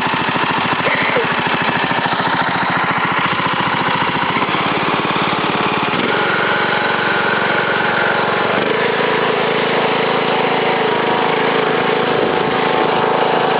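Riding lawn mower's engine running steadily as it is driven, its note shifting slightly about six seconds in and again near nine seconds.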